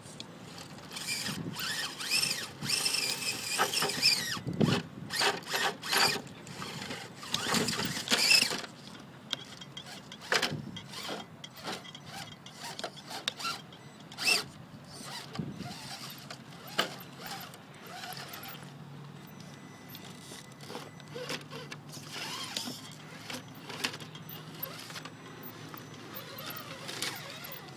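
Electric 1/10 scale RC rock crawler, with a 35-turn Holmes Hobbies TorqueMaster brushed motor and hardened transmission gears, whining as it crawls over rocks, with many sharp clicks and scrapes from the tires and chassis on the stone. The whine and clicks are busiest in the first eight seconds, then give way to scattered clicks over a quieter steady hum.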